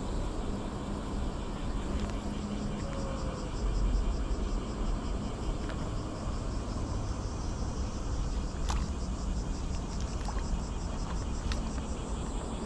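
Steady low rumble of outdoor background noise, with a faint, high, rapidly pulsing buzz over it and a few light clicks near the end.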